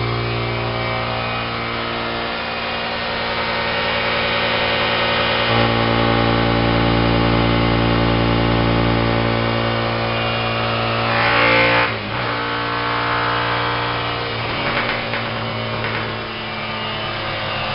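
Car engine running at idle through a Roncar T1+ (2way+) switchable aftermarket exhaust, a steady low, even drone. Its tone shifts a few times, with a short louder swell about eleven seconds in.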